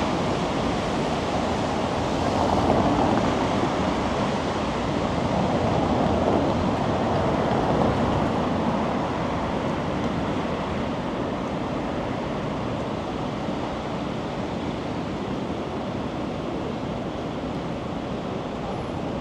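Steady rushing noise of a city street, swelling twice in the first half and easing slightly after.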